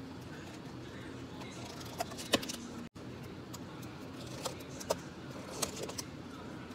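Clear plastic dome lids being pressed and snapped onto plastic drink cups: a few sharp plastic clicks and crackles, the loudest about two seconds in, with smaller ones later, over a steady low hum.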